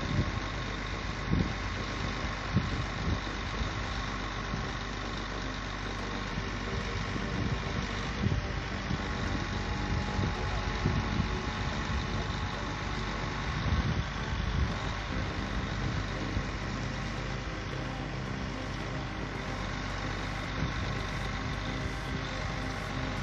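Engine of a truck-mounted tree spade running steadily, with a few light knocks.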